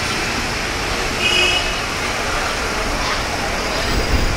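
Road traffic on a busy city street: cars, a bus and scooters running past in a steady wash of noise. About a second in there is a brief high tone, and a low rumble swells near the end.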